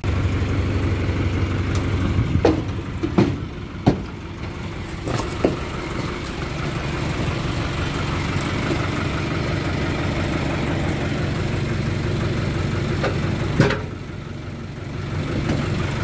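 Crane truck's engine idling steadily, with several sharp knocks and clinks in the first few seconds and another a little before the end.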